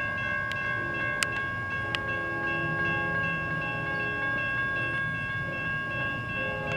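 Railroad grade-crossing warning bell ringing steadily, with a freight locomotive horn sounding in the distance from about a second in. A few sharp clicks come in the first two seconds.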